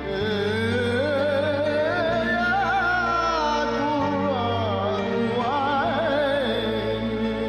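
Solo voice chanting an Islamic shalawat in a long, ornamented melismatic line with heavy vibrato over a steady sustained instrumental accompaniment. The melody climbs over the first three seconds, falls away about four seconds in, then rises and falls again.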